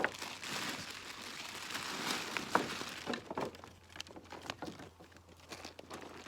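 Rustling and crackling in grass and brush, with scattered small snaps and clicks; it is busier in the first half and thins to occasional snaps later.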